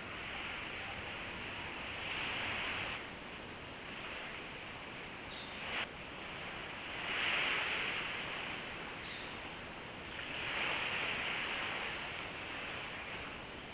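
Small waves washing onto a sandy beach, the surf noise swelling and fading every few seconds. A single sharp click sounds a little before the middle.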